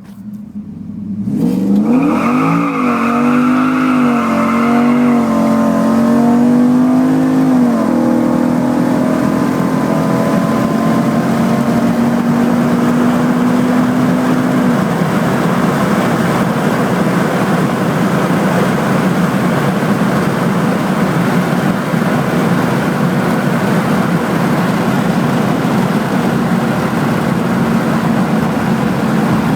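Drag pickup truck's engine accelerating hard from a near stop on a nitrous test run. For the first several seconds the engine pitch climbs and surges up and down as the rear tyres spin, then holds a steady tone. After about 15 s it gives way to a steady rush of road and wind noise at speed.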